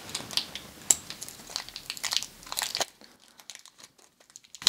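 Clear protective plastic film crinkling and crackling as it is peeled off a watch's steel bracelet: a busy run of sharp crackles for about three seconds, then only faint ticks.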